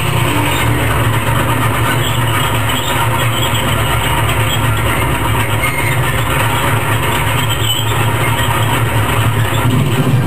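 Crawler tractor running steadily: a deep engine drone with the clatter of its steel tracks as it moves forward.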